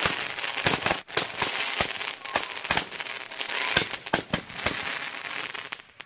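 196-shot super Roman candle firing neon tracer shots in quick succession: a sharp pop every fraction of a second over a continuous crackling hiss. The shots die away near the end as the candle finishes.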